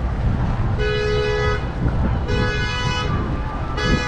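Car horn honking in evenly spaced blasts, each a little under a second long, about one every second and a half: three blasts, the last cut short. Underneath runs a steady low rumble of traffic or wind.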